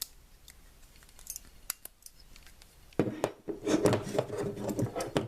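ProMaster 15-in-1 folding multi-tool being worked open by hand: a few sharp metal clicks, then about two seconds of denser clicking and scraping metal as the handles and pliers are swung out.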